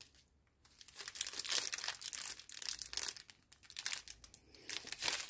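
Clear plastic zip bags of round diamond-painting drills crinkling as they are handled, in irregular bursts of crackles starting about a second in.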